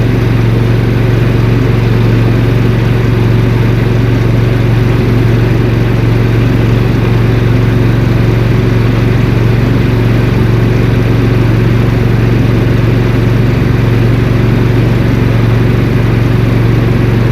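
Briggs & Stratton Vanguard gasoline engine of a walk-behind mini skid steer running steadily and loudly while the machine pushes snow with its blade.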